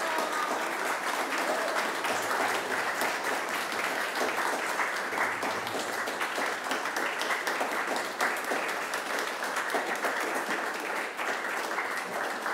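Audience applauding, many hands clapping at a steady level throughout.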